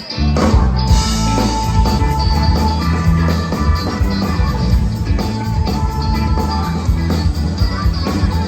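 Rock band playing live without vocals: drums, bass and electric guitar. The full band comes in right at the start and keeps a steady beat.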